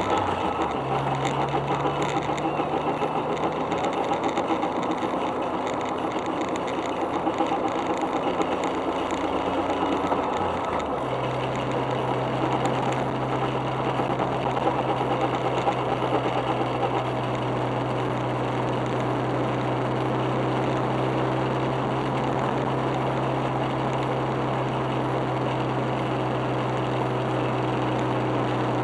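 Suzuki Alto Works running, a steady low hum with a pitch shift about eleven seconds in, carrying the grinding noise from a front wheel hub. The hub is worn by 0.5 to 1 mm, and the noise persists despite new hub bearings.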